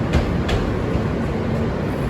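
An R160B subway train running on the track: a steady low rumble with a few sharp clicks of the wheels over rail joints, the loudest about half a second in.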